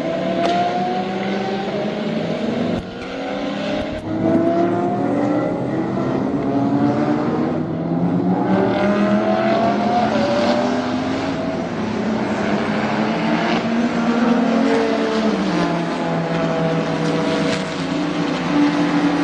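Race cars' engines at speed, several cars in turn, engine notes rising and falling through the gears. The sound breaks off briefly about 3 and 4 seconds in.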